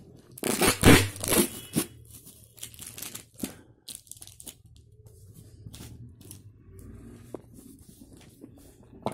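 Packing tape and cardboard being ripped open on a cardboard shipping box, with a few loud rips in the first two seconds, then scattered rustling and light taps as the box is handled.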